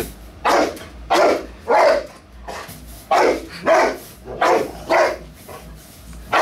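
Boxer dog barking repeatedly at puffs of smoke from a smoke machine: about eight loud barks, some coming in quick pairs.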